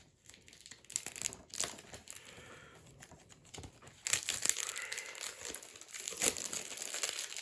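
Plastic shrink-wrap on a sealed DVD case being torn open and peeled off by hand: crinkling and crackling, sparse at first and busier and louder from about halfway through.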